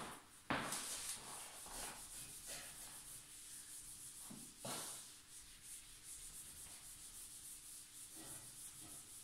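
Whiteboard eraser rubbing back and forth across a whiteboard in quick repeated strokes, wiping off marker writing.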